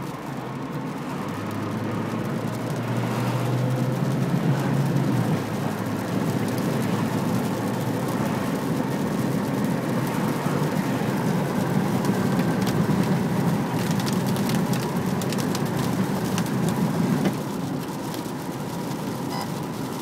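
Car on the move: steady road and engine noise that grows louder a couple of seconds in, with a low hum at first and scattered light clicks later.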